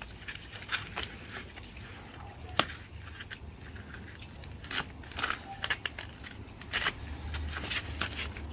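Packing wrap being pulled off a new bike, crinkling in irregular crackles, with one sharp click about two and a half seconds in.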